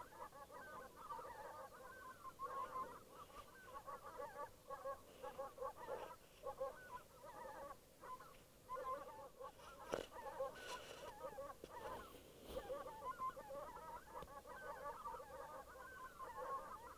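A flock of wild geese calling in flight overhead: many faint, overlapping honks, without a break.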